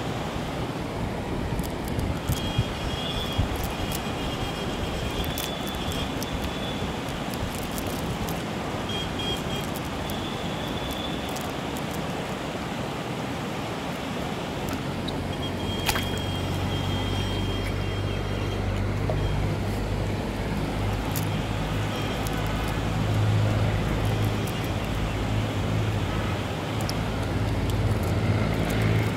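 An engine running steadily: a noisy hum throughout, joined about halfway through by a low, even drone that grows a little louder near the end, with a few scattered faint clicks.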